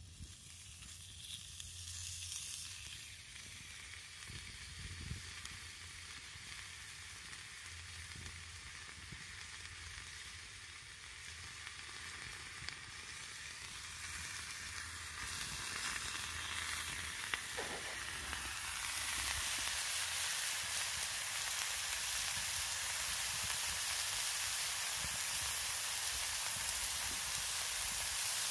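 Food sizzling in a frying pan, the sizzle building gradually and then louder and steady from about two-thirds of the way in.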